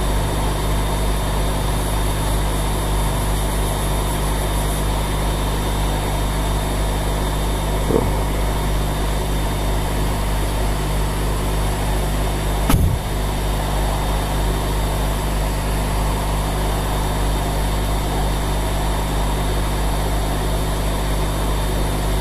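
Hot air rework station blowing hot air onto a phone's CPU chip: a steady rush of air with a low hum from its blower fan. One short knock about thirteen seconds in.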